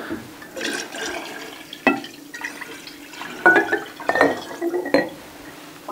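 Lemon-zest infusion in spirit poured from a glass jar into a large glass jar of sugar syrup, splashing and trickling unevenly, with two sharp clinks about two and five seconds in.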